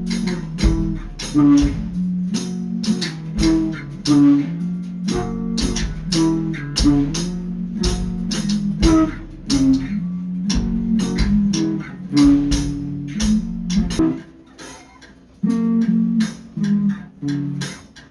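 Background music: rhythmic plucked guitar over a bass line, the bass dropping out about fourteen seconds in.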